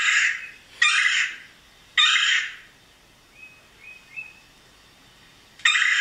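Recorded red-bellied woodpecker calls played back through a tablet speaker: four short rough calls of about half a second each, three in quick succession and then a long gap before the fourth near the end.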